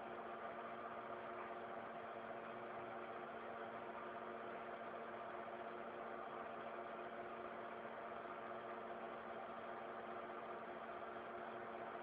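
Industrial three-axis CNC mill humming steadily, its motors and fans giving a constant machine drone with several steady tones and no cutting strokes or clicks.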